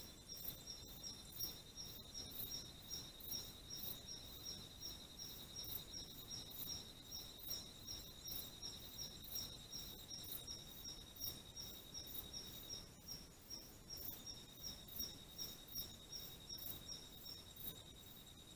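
Night insects calling: a steady high-pitched trill together with a regular chirping of about two to three chirps a second, faint over a low hiss.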